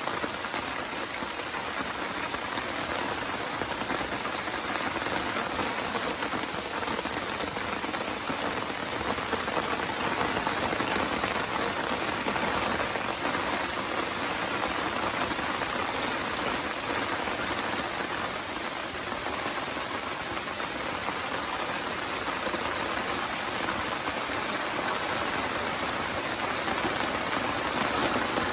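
Steady rain falling, an even hiss of many drops that swells slightly now and then.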